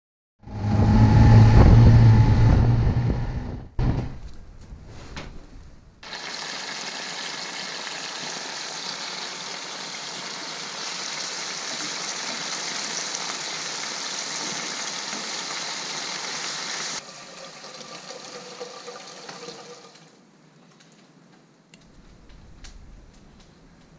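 Potatoes and onions sizzling as they fry in oil in a pan: a steady hiss that starts about six seconds in and drops lower a few seconds before the end. Before it, a loud low-pitched sound lasts about three seconds.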